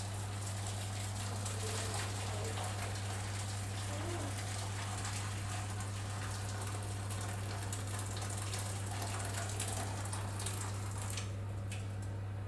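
Water being poured into a baking tray around a foil-wrapped cheesecake tin to make a water bath: a steady splashing trickle that thins out and stops about eleven seconds in.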